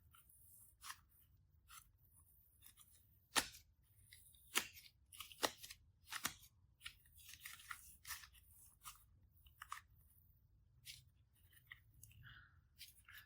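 Slime being worked by hand, giving faint irregular crackling and clicking pops, with a few sharper snaps near the middle.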